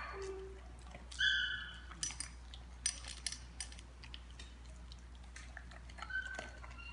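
Two dogs eating dry kibble from stainless steel bowls: scattered sharp clicks and clinks of kibble and metal, with a brief high-pitched whine about a second in.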